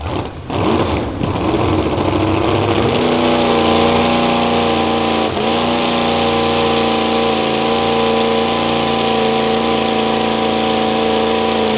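Mini modified pulling tractor's engine running at a steady speed at the starting line before the pull. After a rougher first few seconds it settles into a steady, even drone that holds level, with a brief dip a little past five seconds in.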